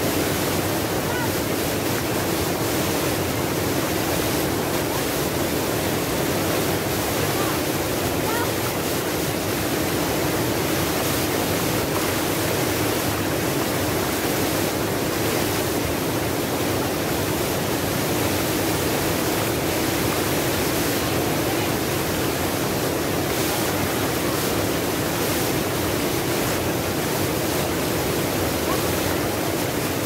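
Small waterfall pouring over boulders into a shallow rock pool: a steady, unbroken rush of falling water.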